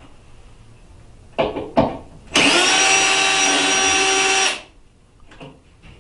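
Cordless screwdriver with a Phillips bit backing out a door check's mounting screw. Two short bursts about a second and a half in, then a steady run with a motor whine for a little over two seconds that cuts off suddenly.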